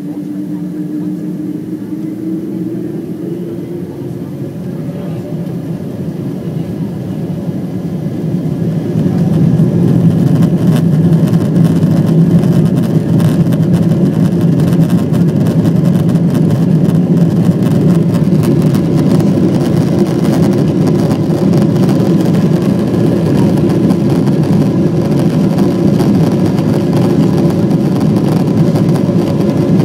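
Boeing 777-200's Pratt & Whitney PW4077 turbofans spooling up for takeoff, heard inside the cabin over the wing: a hum rising in pitch over the first few seconds, then from about nine seconds in a much louder, steady roar at takeoff thrust.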